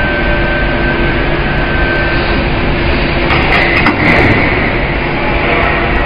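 Battery-powered walkie stacker running: a steady electric whine over a continuous mechanical rumble, with a brief rattling clatter about three and a half seconds in.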